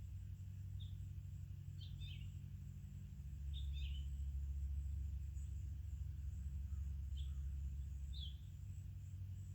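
Small songbirds giving short, high call notes about five times, singly and in quick pairs, over a steady low rumble that swells for a few seconds in the middle.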